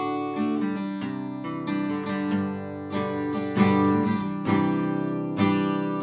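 Takamine steel-string acoustic guitar with koa back and sides and a Sitka spruce top, strummed with a flat pick through a few chords, each strum left ringing.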